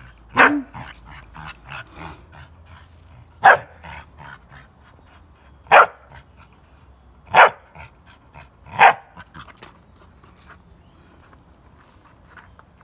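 Young pit bull puppy barking in short, sharp single barks, five of them a second or two apart, while tugging at a rubber strip; the barking stops about nine seconds in.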